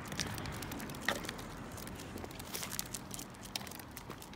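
Walking along a sidewalk: a steady outdoor hiss with scattered light clicks and rustling from footsteps and the hand-held phone, and a faint low hum underneath.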